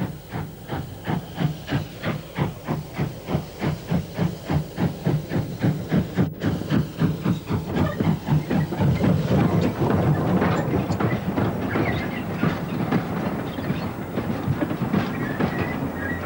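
North British Railway J36 0-6-0 steam locomotive No. 673 Maude working a train, its exhaust chuffing in even beats at about three a second. The beats grow louder and blur together from about nine seconds in.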